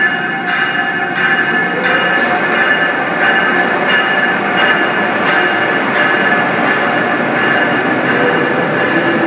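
An Amtrak AEM-7 electric locomotive and its stainless-steel passenger cars roll slowly past, with the wheels squealing in steady high tones. The wheels click sharply over the track at uneven intervals, over a continuous rumble.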